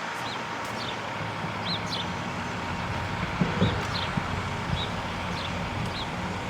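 Steady outdoor background hiss with a small bird chirping repeatedly, short high chirps about once or twice a second, and a soft knock about halfway through.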